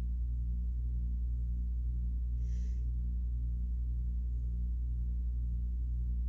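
Steady low hum that pulses about twice a second, with one brief high squeak about two and a half seconds in.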